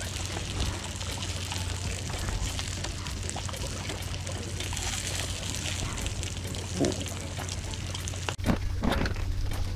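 Thin pieces of seasoned cutlass fish sizzling in hot oil in a frying pan, a steady hiss with small crackles of spitting oil. The sound drops out briefly about eight seconds in, then comes back louder.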